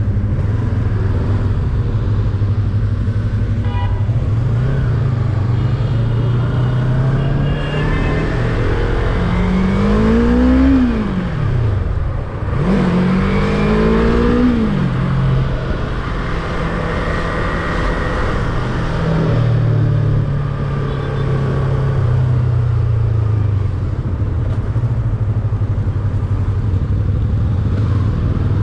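Yamaha R25 sport bike's parallel-twin engine running at low revs, then twice rising in pitch as it accelerates, about ten and fourteen seconds in, each rise dropping back sharply as it shifts up, before settling to a steady low note.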